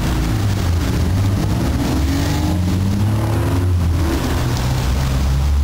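Motor vehicle engine running with a steady low rumble, its note rising slowly as it accelerates.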